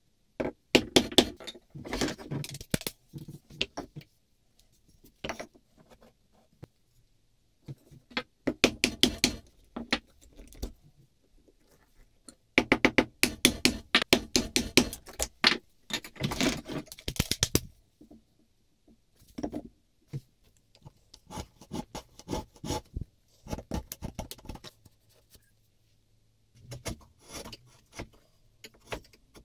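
Steel bench chisel cutting and levering waste out of a mortise in beech: bursts of rapid, crisp crunching clicks a second or more long, with short pauses between.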